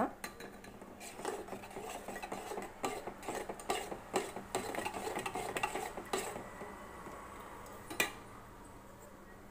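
A steel spoon stirring milk into thick porridge in an aluminium pot, scraping and clinking against the pot's sides in quick strokes. The stirring dies down about six seconds in, and there is one sharp clink near the end.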